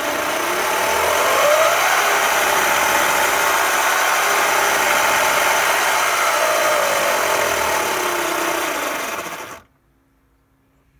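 Twin 1800 W electric go-kart motors spinning an outboard lower unit and propeller in the air through a sprocket, on a bench test of the gearing. A whine rises as they spin up over about two seconds, holds at full speed, falls away as they slow, and the sound cuts off suddenly near the end.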